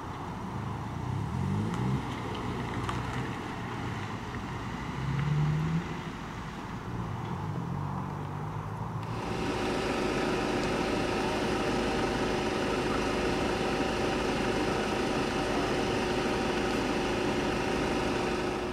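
Vehicle engines running. A low, shifting engine sound gives way about nine seconds in to a louder, steady idling hum with several fixed tones, from a police estate car parked with its engine running.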